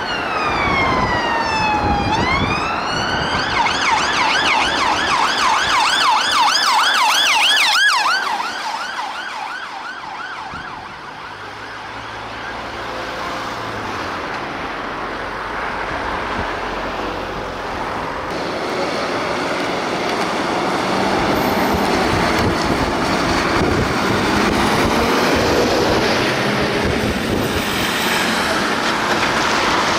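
Emergency vehicle siren: a wail sweeps down and back up, switches about three seconds in to a fast yelp, and cuts off around eight seconds in. Road traffic noise follows, with a fainter wavering siren from about twenty seconds on.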